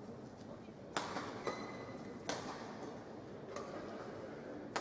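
Badminton rally: sharp racket strikes on the shuttlecock, about one a second, with brief shoe squeaks on the court floor.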